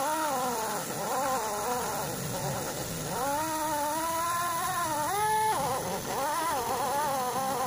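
A handheld buffing grinder whines as it smooths down the glued repair on a tyre's outer sidewall. Its pitch sags and rises as it is pressed on and eased off, jumping up and then dropping about five seconds in.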